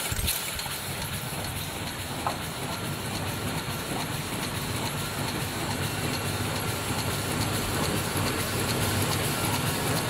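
Mosun MS-C600M double-turntable paper cup machine running steadily: a continuous mechanical clatter with faint clicking through it and one sharper click about two seconds in.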